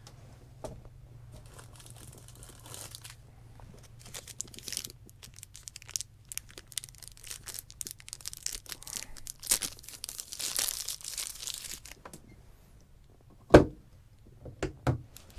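A plastic snack-bar wrapper crinkling and tearing as a power bar is unwrapped. It goes for about ten seconds, and then come a sharp knock and a few lighter knocks near the end.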